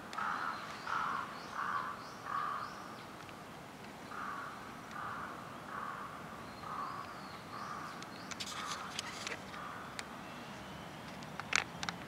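A crow cawing in two runs of short, harsh calls, about two a second, the first run louder than the second. A few sharp clicks come near the end.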